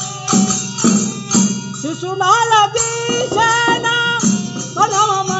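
Devotional bhajan music: percussion keeps a steady beat over a constant drone. About two seconds in, a voice comes in singing a drawn-out, wavering line.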